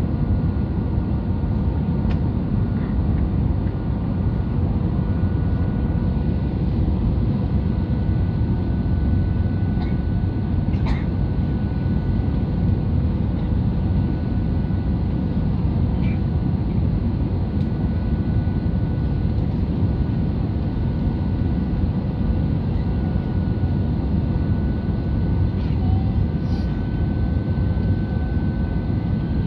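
Steady cabin noise of an Airbus A320 on approach, heard from a window seat: a deep, even rush of engine and airflow noise with a faint steady whine above it.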